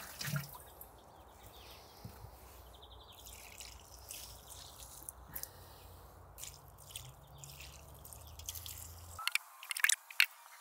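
Liquid nettle manure dripping and trickling from a ladle onto garden soil, faint, with a few sharper clicks near the end.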